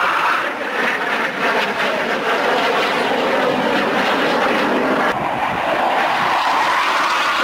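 Jet noise from an M-346 Master's twin Honeywell F124 turbofan engines as the trainer flies its display, a loud steady rushing sound that shifts abruptly about five seconds in.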